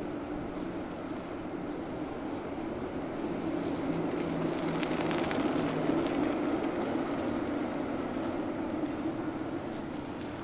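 City street ambience with a steady low hum, swelling as a bicycle passes close about halfway through, with a few light ticks as it goes by.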